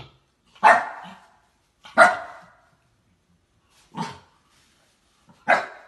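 Young husky-type dog barking four times, short barks a second or two apart.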